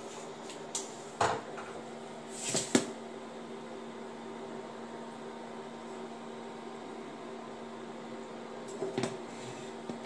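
An induction hob running at full power with a steady electrical hum from its cooling fan. Over it come a few short knocks and clunks as a pan is moved on the glass top, the loudest about three seconds in and more near the end.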